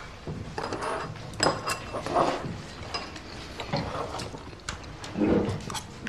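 Chopsticks and spoons tapping and clinking against ceramic bowls and dishes during a meal: scattered light clicks, a few of them briefly ringing.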